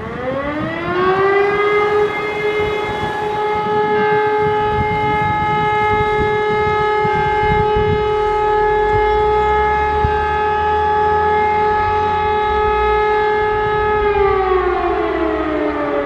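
Elektror E57 electric siren winding up, holding one steady tone for about twelve seconds, then beginning to wind down near the end: the steady-tone signal of a siren test.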